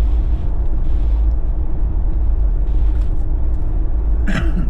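Steady low rumble of a Jeep driving on a snowy road, road and tyre noise from BFGoodrich KO3 all-terrain tyres heard inside the cabin. Near the end, a short vocal sound with a falling pitch from the driver.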